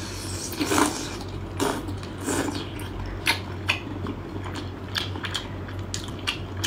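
Close-up eating sounds: a person biting and chewing chili-coated food, with a string of short sharp clicks and crunches and the wet sounds of the food being dipped in chili oil with metal utensils.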